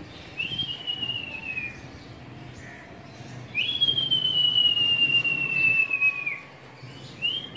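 A person whistling to a flock of circling pigeons: two long, high notes that slowly fall in pitch with a slight waver. The second note is longer, starting about three and a half seconds in.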